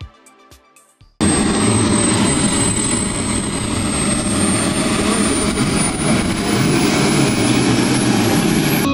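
Small turbojet engines of a large radio-controlled Rafale model jet running on the ground: a loud steady rush with a thin high whine that slowly rises in pitch. It cuts in abruptly about a second in.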